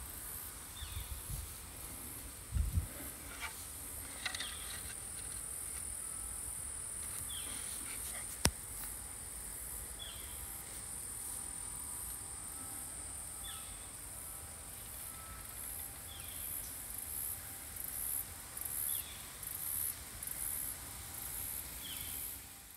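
Outdoor ambience of insects droning steadily at a high pitch, with a short high call repeating every one to three seconds. Low rumble in the first few seconds, and a single sharp click about eight seconds in.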